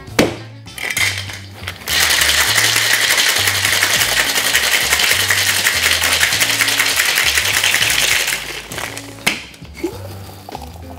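Ice rattling fast inside a cocktail shaker shaken hard for about six seconds, starting about two seconds in. A sharp knock near the end as the shaker is opened, with background music and a steady bass line underneath.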